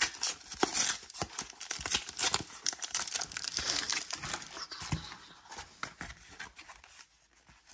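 Pokémon card blister pack being torn open by hand: irregular crinkling and tearing of its plastic and cardboard packaging, dying away in the last second or so.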